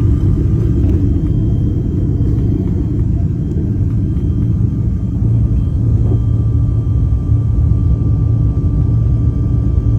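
Steady low rumble of a private jet's engines and airframe heard inside the cabin, with a faint steady whine joining about six seconds in.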